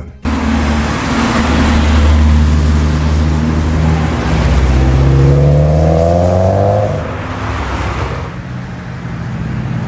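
Car engine running, then accelerating with its pitch rising from about four seconds in, and fading as the car pulls away.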